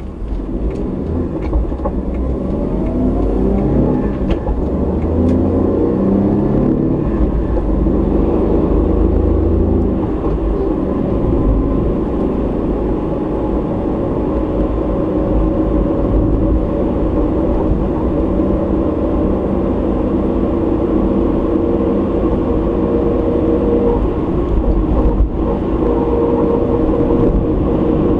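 Car driving, recorded by its dashcam: the engine pulls away and rises in pitch over the first few seconds, then settles into steady cruising engine and tyre noise.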